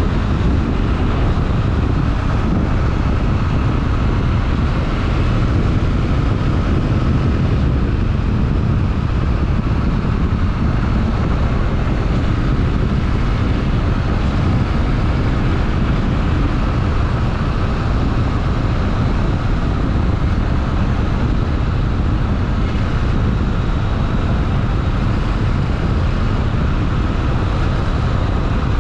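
Honda XRE 300 Rally's single-cylinder four-stroke engine running steadily on the move, with wind buffeting the microphone.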